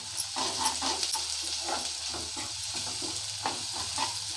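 Sliced onions sizzling in hot oil in a nonstick kadai while a steel slotted spatula stirs them, scraping the pan in quick repeated strokes over the steady sizzle.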